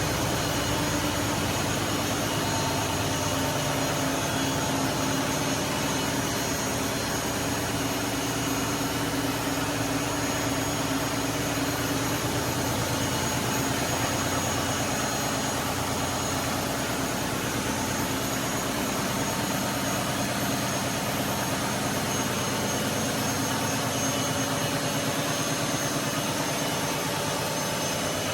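Marine diesel generator engine running steadily, a continuous even drone with steady hum tones.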